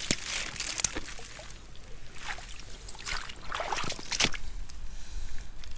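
Shallow rock-pool water sloshing and trickling, with several irregular splashes as wellington boots step through wet seaweed and puddles.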